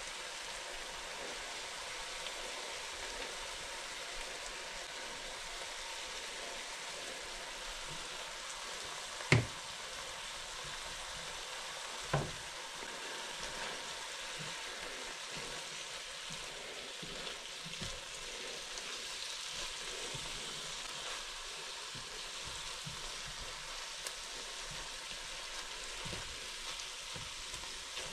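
Italian sausage, mushroom, onion and garlic filling sizzling steadily in a skillet while being stirred with a spatula. Two sharp knocks come about nine and twelve seconds in.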